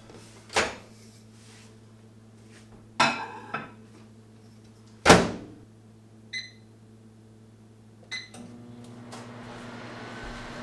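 Over-the-range microwave being loaded and started: the door clicks and knocks, with the loudest clunk about five seconds in, then two keypad beeps, and the oven starts running with a steady hum.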